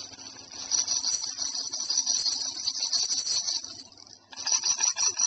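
Baby's shaker rattle being shaken, a busy high rattling of beads for about three seconds, dropping away briefly near four seconds, then starting again.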